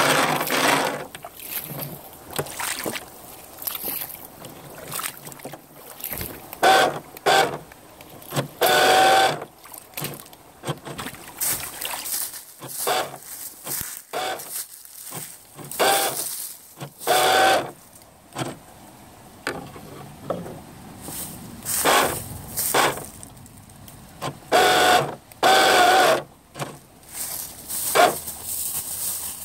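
Toy RC boat's small electric motor and propeller running in repeated short bursts of throttle, a whine with water churning, heard from on board the boat.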